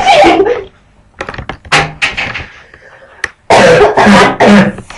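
Clear plastic shower curtain rustling and curtain rings clicking against a curved metal shower rod as the curtain is hooked on, with one sharp click a little after three seconds. A loud wordless vocal outburst comes near the end.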